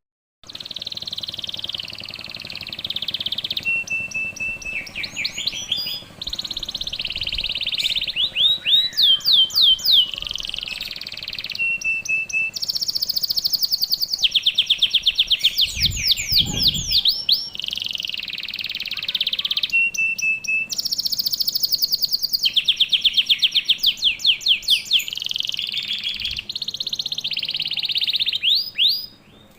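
Domestic canary singing in fast, tight rapid-fire phrases: quick repeated sweeping notes and held rolling trills, in segments that start and stop abruptly. A brief low thump sounds about halfway through.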